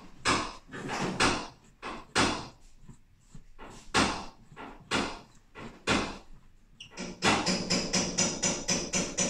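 Slide hammer on a glued pulling tab knocking as it pulls a dent in a car body panel: sharp metallic knocks at irregular intervals, then a quicker run of knocks in the last couple of seconds.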